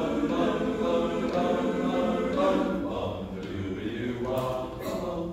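Men's barbershop chorus singing a cappella in close four-part harmony, moving through held chords.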